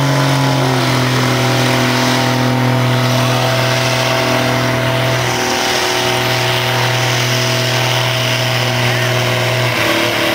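Cummins 5.9-litre inline-six turbodiesel in a lightly modified Dodge Ram pickup, held hard under heavy load as the truck drags a pulling sled. It makes a loud, steady, deep drone that dips briefly about halfway through and is let off just before the end.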